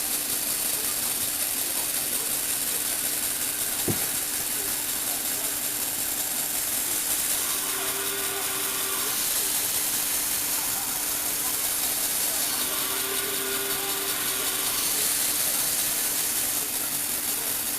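Lego Technic motor and gear train running steadily, with a constant hum and gear noise, and a single sharp click about four seconds in. A faint higher whine comes and goes twice.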